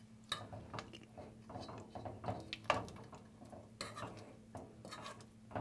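Metal spoon scraping and tapping against a pot as it digs and stirs through soft butter: a string of faint, irregular scrapes and clinks.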